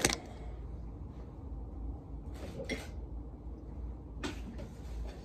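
Quiet room with a low steady hum and a few faint rustles and handling noises, with a slightly louder knock or bump about four seconds in.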